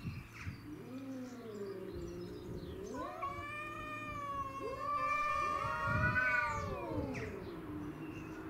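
Domestic cats yowling in an aggressive standoff. A lower wavering howl comes first, then about a second later a long, drawn-out caterwaul that rises and falls in pitch for about four seconds, loudest near its end.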